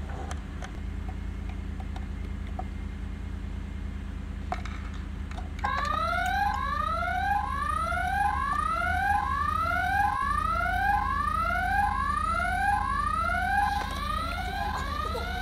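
Toy alarm beacon on the prison sounding an electronic alarm: a rising whoop repeated about once a second, starting about five and a half seconds in. It is the jailbreak alarm for an escaped prisoner. Before it, only faint clicks from handling the toys.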